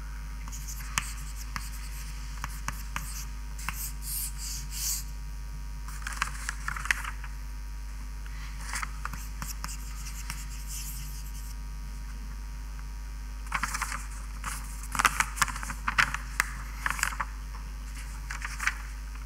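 Writing on a board: spurts of short scratching and scraping strokes, busiest in the last few seconds, over a steady low hum.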